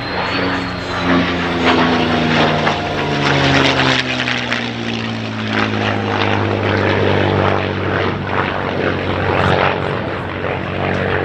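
A P-51D Mustang and an F-16C flying past in formation. The Mustang's Packard Merlin V-12 and propeller drone falls in pitch over the first several seconds as the pair go by, then holds steady as they fly away, over a broad rushing noise.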